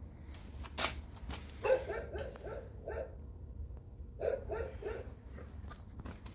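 A dog barking: a quick run of short barks about two seconds in, and another run a little after four seconds in, with a few sharp clicks between.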